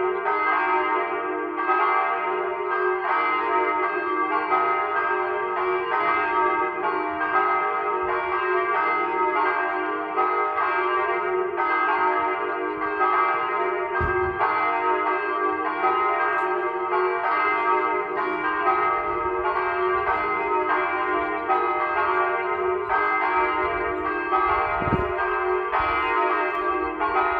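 Church bells ringing steadily, a new stroke about once a second, each ringing on under the next so the tones overlap continuously.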